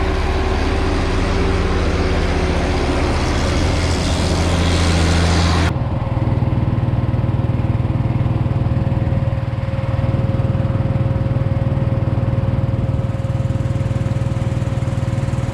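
Tractor engine running steadily with a loud rushing noise over its drone. About six seconds in it cuts abruptly to another tractor engine droning steadily with a thin, steady whine above it.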